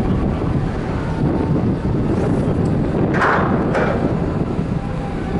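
Wind buffeting the microphone on a ferry's open deck, over a low steady rumble of the ship under way. A brief brighter hiss rises about three seconds in.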